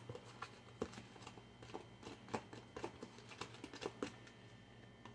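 Faint, irregular clicks and knocks of a utensil tapping and scraping a plastic container while powdered-sugar glaze is scooped into a zip-top bag.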